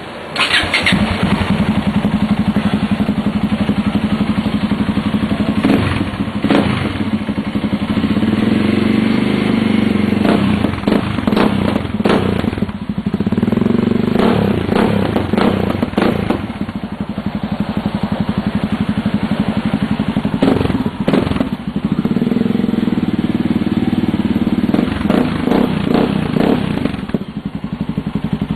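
Yamaha XT 660's single-cylinder four-stroke engine running with its exhaust note, a steady low rumble with several sharp cracks at intervals.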